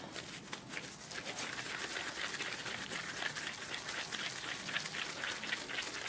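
Gloved hands working raw ground beef, closing it around a Brussels sprout into a ball: a faint, dense crackle of small clicks from the disposable gloves and the meat being pressed and kneaded.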